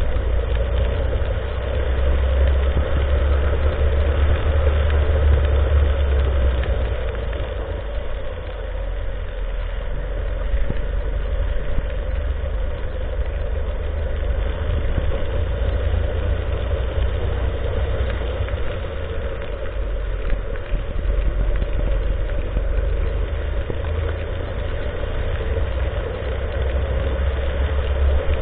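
Rental go-kart's small engine running steadily under way, with a deep low rumble beneath it. The level swells and eases gently every few seconds.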